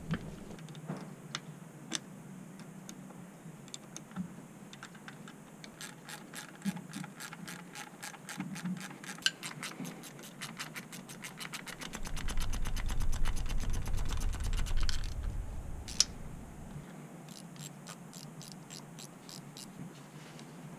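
Ratchet wrench clicking in a fast, even run for about five seconds, with scattered single clicks and knocks of tools on the engine before and after. Partway through, a low rumble comes in for a few seconds.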